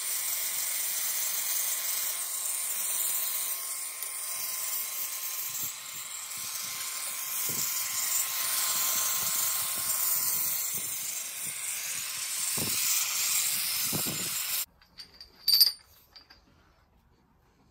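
Angle grinder running with its disc on a steel chain link: a steady grinding hiss over the motor's whine. It stops abruptly about 15 seconds in, and a single ringing metal clink follows.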